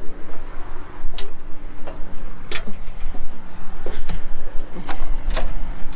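Boots on the perforated steel ladder steps and platform of a John Deere 6500 self-propelled sprayer during the climb up to the cab: about five sharp metal knocks spread out, over a steady low hum.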